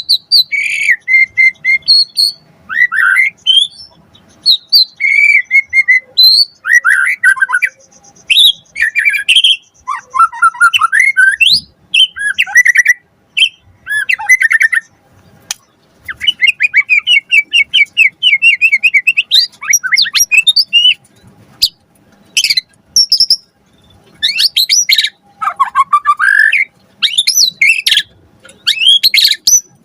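White-rumped shama singing in full voice: a continuous run of varied phrases, clear whistles, rapid trills and harsh chattering notes, with short pauses between phrases.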